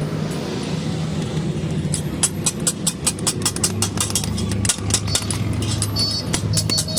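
Steady machine hum with rapid hammer blows on metal starting about two seconds in, roughly four or five a second, with a brief metallic ring near the end.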